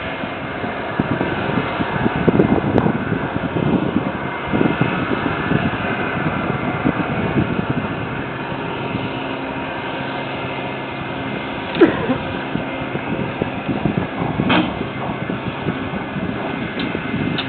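Big Chute marine railway carriage machinery running with a steady mechanical hum and rumble. Two sharp knocks stand out, one about twelve seconds in and another a couple of seconds later.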